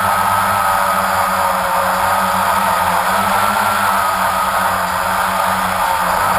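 A drone's motors and propellers whining steadily in flight, heard from its own onboard camera, with the pitch wavering slightly.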